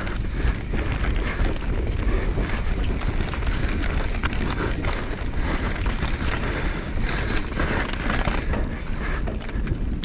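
Wind buffeting the microphone over the rumble of mountain bike tyres rolling fast down a dirt trail, with scattered small clicks and knocks from the bike over the rough ground.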